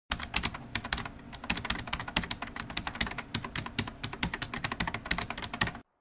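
Typing on a computer keyboard: rapid, irregular key clicks that stop abruptly just before the end.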